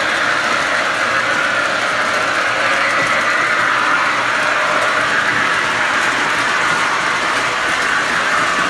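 MTH O-scale Canadian National Alco FA diesel set running steadily on three-rail tubular track, its wheels and motors making a continuous rumble.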